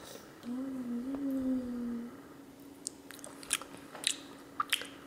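A person hums a short, wavering 'mmm' for about a second and a half, then a spoon clicks and taps several times against a dish.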